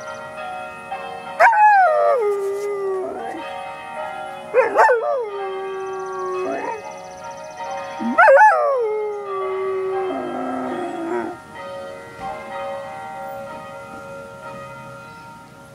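A Berger Picard puppy howling along with ringing church bells. It gives three long howls that start high and slide down, about three seconds apart, then a quavering lower howl, over the bells' steady ringing tones, which fade toward the end.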